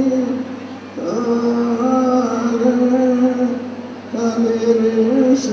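Slow, chant-like singing on long held notes, in phrases: one fades out just after the start, a new one begins about a second in, and another about four seconds in.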